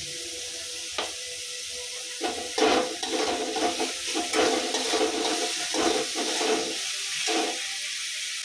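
Chopped onions sizzling in oil in a metal kadai, with a steady hiss. From about two seconds in until near the end, a steel spatula scrapes and stirs against the pan in quick, irregular strokes. There is a single sharp metal tick about a second in.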